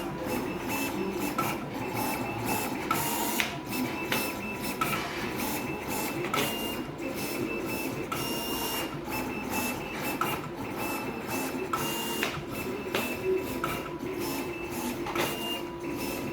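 Automatic-feed decal cutting plotter running, its carriage motors whirring in short starts and stops with frequent sharp clicks.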